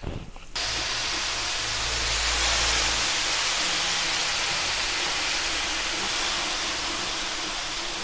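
Vinegar poured onto sliced red onions and brown sugar on a hot gas plancha griddle sizzles, deglazing the onions for an onion jam. The hiss starts suddenly about half a second in and then runs on steadily.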